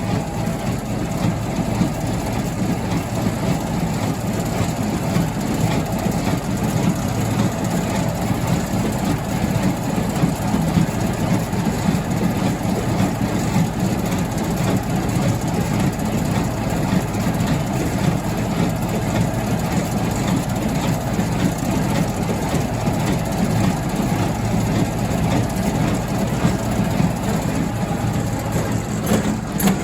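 Farm machinery running steadily: the engine-driven hay rebaling setup at work, with a few knocks near the end.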